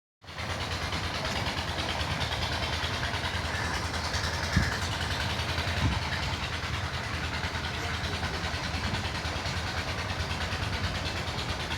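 A vehicle engine running steadily, with two brief thumps about four and a half and six seconds in.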